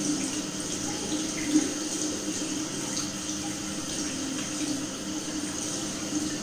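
Water running steadily from a bathroom tap and splashing over a rotary electric shaver's open head held under the stream in a ceramic sink, as the shaver head is rinsed clean.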